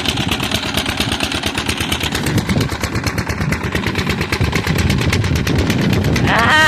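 An engine running steadily with a rapid, even chugging. A man's voice starts near the end.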